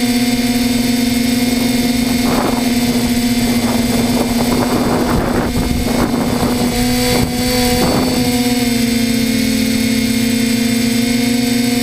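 Spidex V2 multirotor's electric motors and propellers buzzing steadily at a fixed pitch, picked up by the GoPro on board. In the middle the buzz roughens and wavers for a few seconds, then steadies.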